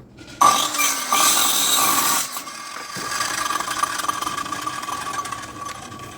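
A power tool running with a steady whine: loudest for the first two seconds, then running on a little quieter until it stops near the end.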